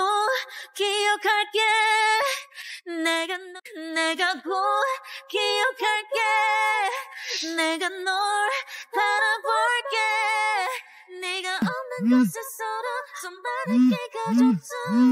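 A woman's voice sings a slow, plaintive melody with vibrato, almost unaccompanied. From about three-quarters of the way in, a mobile phone's incoming-call alert joins it in short repeated buzzes.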